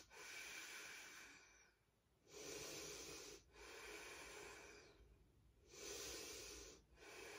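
A woman taking slow, deep yoga breaths while holding a pose: faint in-and-out breaths, about five of them, each roughly a second long with short pauses between.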